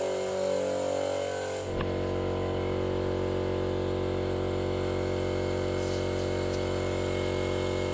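Steady mechanical hum made of many even tones, changing suddenly about two seconds in and then holding unchanged. Near six seconds there is a faint brief hiss as a dial tyre pressure gauge is pressed onto a trailer tyre's valve.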